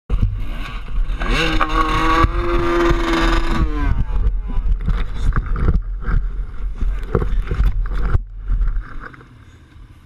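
Enduro dirt bike engines revving hard. About a second in, one engine climbs and holds at high revs for a couple of seconds before dropping back, followed by irregular knocks and clatter; the sound falls away near the end.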